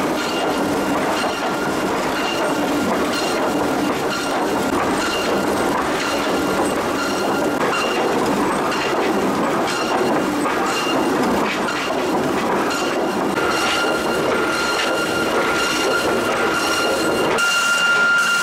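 Ledinek Stratoplan 4VA calibration planer running with timber boards feeding through: a steady machine noise with a high whine and irregular clacking and knocks from the boards on the feed. Near the end the rumble drops away and the high whine of the planing heads stands out more clearly.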